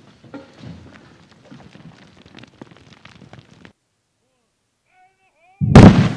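Aftermath of a rock blast in drilled holes: scattered clicks and small impacts of falling rock debris, fading out about two thirds of the way in. After a brief near-silence with a few faint chirps, another blast goes off near the end with a sudden loud bang and rumble.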